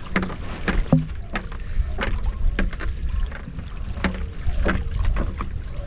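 Irregular small splashes and slaps of water against a wing-foil board riding through light chop, over a low rumble of wind on the microphone.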